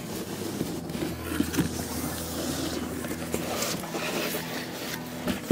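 Large cardboard shipping box being opened: cardboard scraping and rubbing as the long lid is worked loose and lifted, with a steady low hum underneath and a sharp knock near the end.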